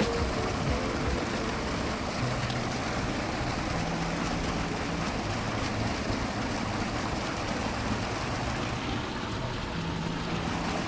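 Water rushing steadily over a river spillway.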